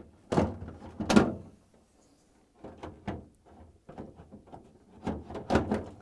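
Plastic freezer basket of a GE refrigerator knocking and clattering as it is set into its drawer frame on metal slide rails. Two sharp knocks come in the first second, then a run of lighter clicks, with a couple of louder knocks near the end.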